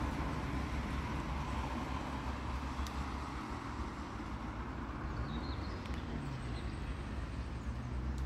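Road traffic: cars passing in a steady rumble of tyres and engines.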